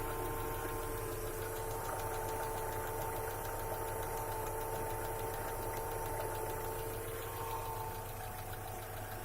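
Car engine idling with a fast, even knocking and a steady whine: a knock that appeared after the timing belt was replaced.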